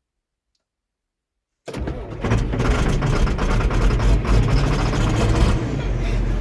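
Silence, then about two seconds in a heavy vehicle engine cuts in abruptly and runs steadily under load.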